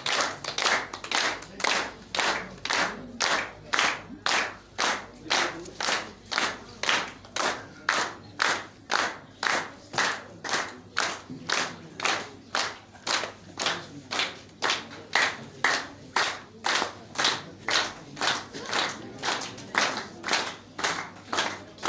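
A group clapping hands in a steady rhythm, about two claps a second, keeping time.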